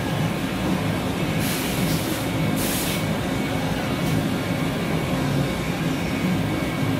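Sodick AQ35L CNC ram EDM running with a steady low hum as its ram head lowers the electrode. Two short hisses come about one and a half and two and a half seconds in.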